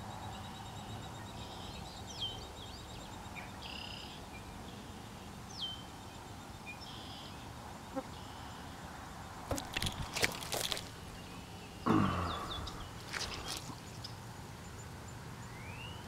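Birds calling outdoors: short repeated calls and quick whistled slides over a steady low background hum. About ten seconds in come a run of sharp clicks, and about twelve seconds in the loudest sound, a thump and rustle of handling noise close to the microphone.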